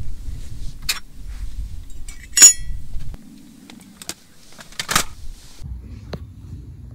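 Several sharp knocks and clinks. The loudest, about two and a half seconds in, rings briefly like metal or glass.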